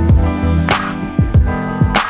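Background hip-hop instrumental with a steady beat: deep kick drums under sustained melodic notes, and a sharp snare hit twice.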